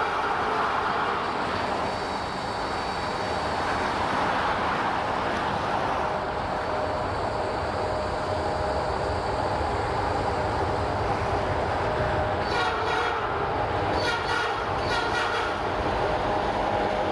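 Norfolk Southern diesel freight locomotives approaching and passing, engines running under a steady rumble. Near the end the horn gives three short blasts.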